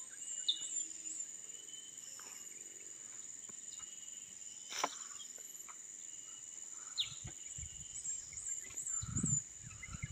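Steady high-pitched drone of insects, with scattered bird chirps, including a quick run of about five near the end. A single sharp click about halfway through and a few low thuds near the end.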